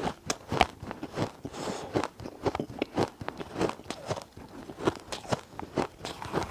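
Ice being bitten and chewed, with irregular sharp crunches several times a second.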